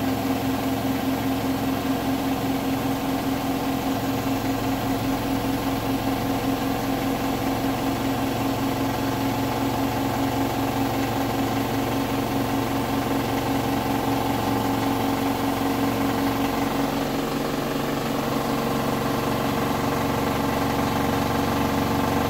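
Hotpoint Bed + Bath washing machine drum spinning at full speed on its final 1400 rpm spin. It gives a steady motor hum with a fast, even pulsing knock, the weird knocking noise heard at 1400 rpm.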